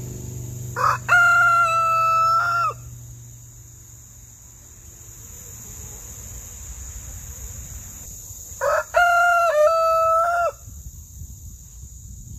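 A rooster crowing twice, about seven seconds apart: each crow is a short opening note followed by a long held call of about a second and a half that drops away at the end.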